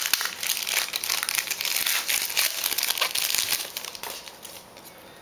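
Plastic foil trading-card pack wrapper crinkling and crackling as it is handled and torn open, fading to quiet about four seconds in.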